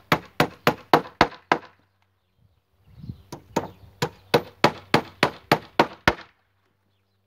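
Hammer driving nails into wood: a quick run of about six blows, three to four a second, a short pause, then a longer run of about a dozen blows ending on a hard final strike.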